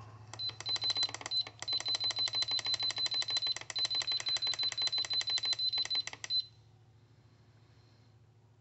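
Masterbuilt electric smoker's digital control panel beeping rapidly, about nine short high beeps a second, as the temperature-up button is held and the set temperature steps upward. The beeping stops a little past halfway.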